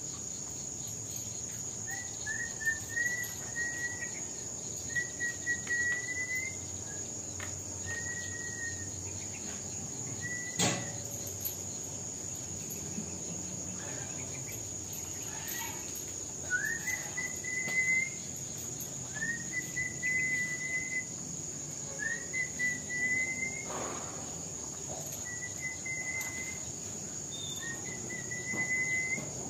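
A steady, high-pitched insect drone with a bird repeating a short whistled call that rises then holds level, every two to three seconds with a pause midway. A single sharp knock about ten seconds in.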